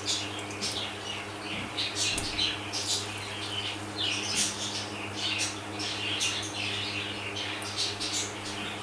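Whole cloves and black peppercorns sizzling in hot oil in a kadhai, with many small irregular crackles and spits.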